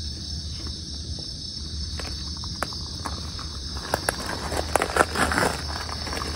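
Night insects chirring steadily, with irregular crunching on gravel from about four seconds in.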